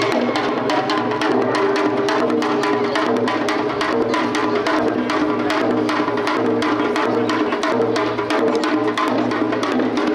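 Korean traditional percussion music in samul nori style: fast, dense drum strokes over a held melody that steps from note to note.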